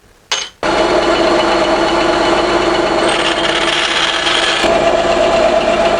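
A small power tool running steadily, a rasping noise over a steady motor hum, starting abruptly about half a second in.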